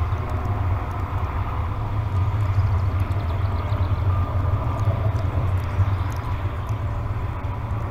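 Steady low rumble of outdoor background noise, unchanging throughout, with a faint thin higher tone now and then.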